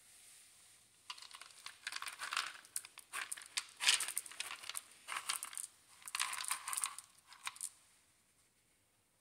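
Dry dog kibble rattling in a plastic scoop and pattering onto a fabric snuffle mat as it is shaken out, in a series of bursts that start about a second in and stop near the end.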